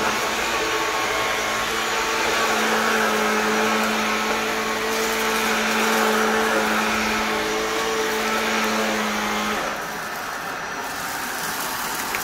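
Vacuum cleaner running steadily with a pitched motor hum. About nine and a half seconds in the hum's pitch drops out and the sound turns a little quieter, though the airflow noise carries on.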